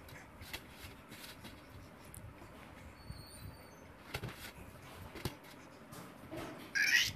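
A baby's vocal sounds over faint knocks and rustles, with a few faint high squeaks about halfway through and a short, loud breathy squeal near the end.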